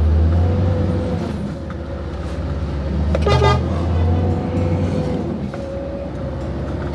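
Heavy goods vehicle's diesel engine running steadily, heard from the cab, with one short horn toot about three seconds in.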